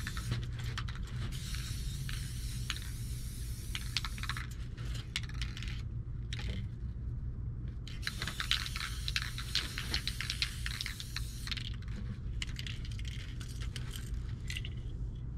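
Aerosol spray paint can hissing through a stencil, with many sharp metallic clicks of the can's mixing ball rattling. The spraying stops for about two seconds midway, resumes, and ends about a second before the close, over a steady low hum.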